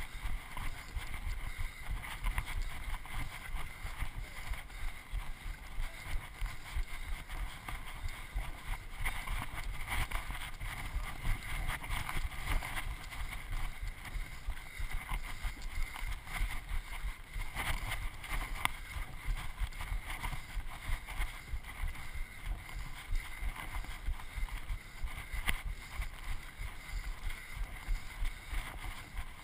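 Wind buffeting the microphone of a handheld camera carried by a running person, with irregular footfalls on a dry dirt trail and brushing against dry grass.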